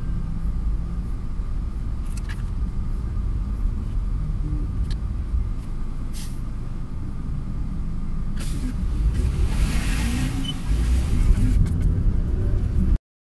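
Car interior noise: a steady low rumble of engine and road, heard from inside the cabin, with a few faint clicks. About nine seconds in, a hiss swells for a couple of seconds. The sound cuts off suddenly near the end.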